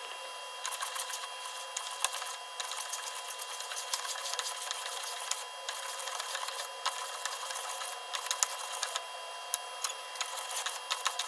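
Wooden hand plane shaving a wooden board: a dry, crackling rasp of the blade cutting along the grain, in several strokes with short breaks between them.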